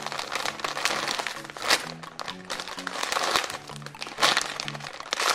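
Background music with a bass line moving in short notes, over repeated crinkling and rustling as a jumbo squishy toy is handled.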